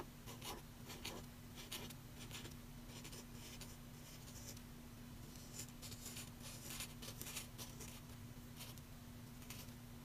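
Felt-tip pen drawing short strokes on watercolour paper: faint, quick scratches of the tip across the paper, coming in bursts with a quieter pause in the middle.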